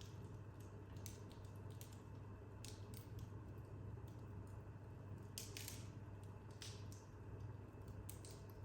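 Wood fire burning in a corner fireplace, crackling with scattered sharp pops and a brief louder hissing crackle about five and a half seconds in, over a steady low hum.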